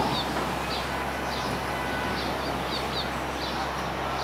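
Small birds chirping repeatedly over a steady low rumble of city street traffic.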